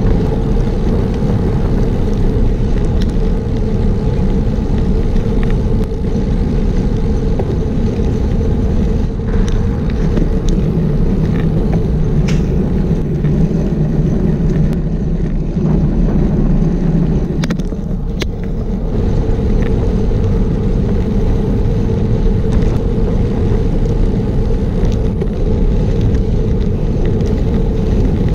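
Wind rushing over a GoPro's microphone on a road bike ridden at about 25–29 km/h: a steady noise, heavier for several seconds in the middle.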